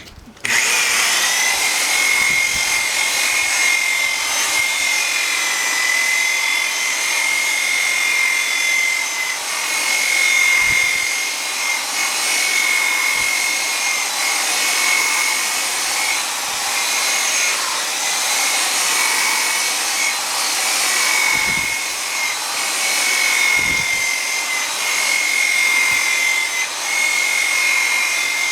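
Milwaukee electric buffer running steadily with a high motor whine as it polishes a plastic headlight lens with compound. It starts abruptly about half a second in, the whine wavering slightly in pitch and level as it works.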